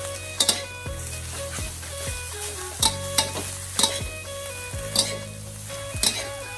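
Rice vermicelli stir-frying in a hot metal wok: a steady frying sizzle, broken by sharp scrapes and clacks of a metal spatula against the wok at irregular intervals as the noodles are tossed.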